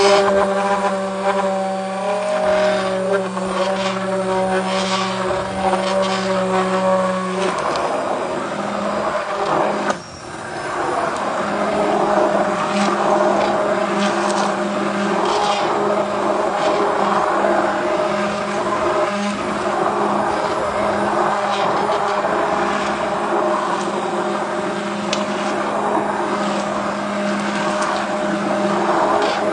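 Handheld immersion blender running in a pot of thick potato leek soup, blending in the cream. Its steady motor whine changes character about seven seconds in and dips for a moment about ten seconds in.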